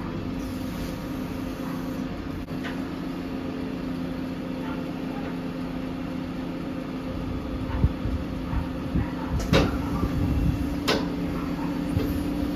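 Volvo FE 320 truck's diesel engine running steadily to drive the HIAB crane's hydraulics, its note rising slightly about three quarters through, with a few sharp metal clanks from the crane's grab in the second half as it lifts off the set-down bulk bag.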